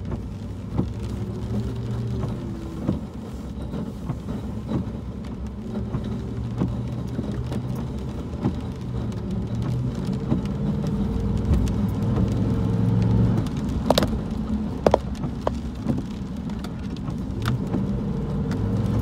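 2001 Dodge Dakota pickup driving on a wet road, heard from inside the cab: the engine runs steadily with its pitch drifting a little, under tyre hiss from the wet surface. A few sharp knocks come about three-quarters of the way through.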